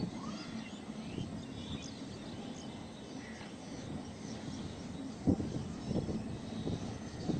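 Distant train running past, a low steady rumble, with birds chirping over it. A few short low thumps come in the second half.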